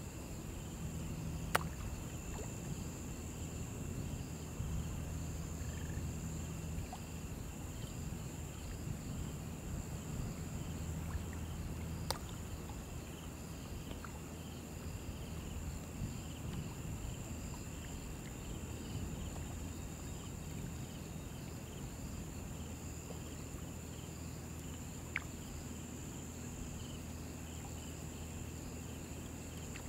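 Steady high chirring of summer insects over a low, even rush of river water, with a few faint clicks.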